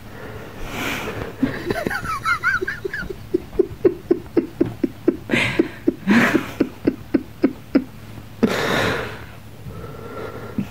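A person laughing hard and breathlessly: a long run of short rhythmic 'ha' pulses, about four a second, broken by breathy gasps, with a longer wheezing gasp near the end.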